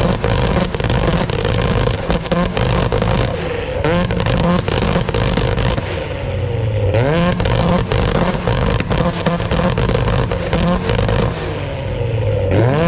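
Tuned 600-horsepower Nissan Silvia S15 engine revved hard while the car stands still, the revs sweeping up and falling back several times. Sharp cracks and pops run through it.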